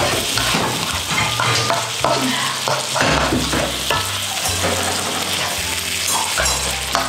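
Chopped vegetables sizzling in a hot non-stick wok while a spatula stirs and scrapes them around the pan, with repeated short scraping strokes. Low background music plays underneath.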